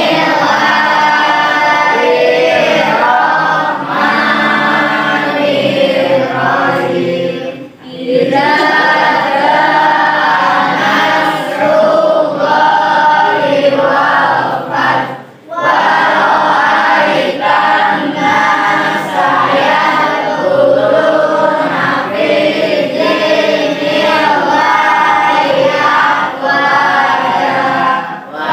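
A class of schoolchildren chanting a prayer together in unison, in a sing-song melody, with two brief pauses for breath.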